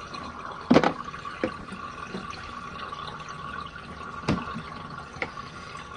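Washing machine drain pump running steadily as water drains out, with a few sharp plastic knocks and clicks from handling the lint filter, the loudest about a second in.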